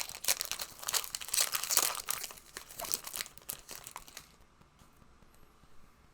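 Trading-card pack wrapper being torn open and crinkled: a rapid run of sharp crackles that stops suddenly about four seconds in.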